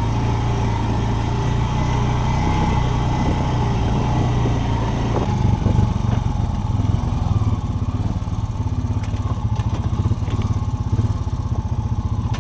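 Off-road vehicle engine running steadily while driving a rough trail, with a low hum and some rattling and knocks. The engine sound turns choppier about seven seconds in.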